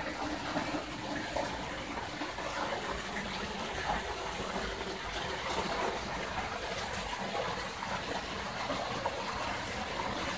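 Water trickling and splashing down through stacked vertical planter towers into an aquaponics fish tank, a steady even splashing.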